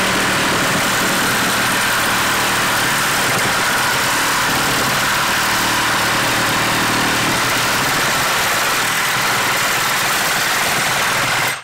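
DeWalt DCS367 compact brushless reciprocating saw running flat out, its Milwaukee Torch carbide-tooth blade sawing through 1-inch black steel pipe. A steady, even saw noise that cuts off suddenly near the end as the blade finishes the cut.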